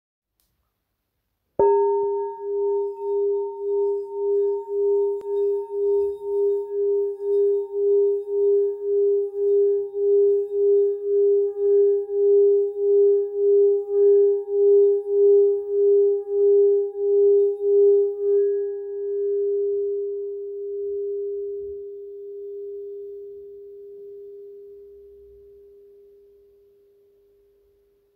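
A singing bowl struck about a second and a half in, then ringing one low tone with a few higher overtones that wavers in a steady pulse about twice a second, fading out slowly over the last ten seconds.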